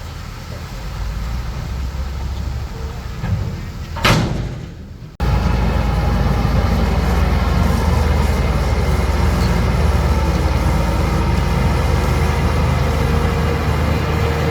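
Diesel engine of heavy earthmoving machinery running under load, with one sharp loud clank about four seconds in. About five seconds in the sound cuts abruptly to a louder, steady engine drone.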